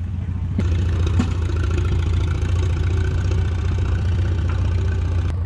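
Antique tractor engine running steadily at low speed, a low, even hum, as it pulls a train of barrel cars.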